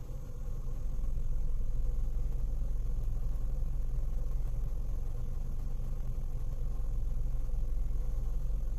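Steady low rumble of a Toyota car's engine idling, heard from inside the cabin; it gets a little louder about a second in and then holds.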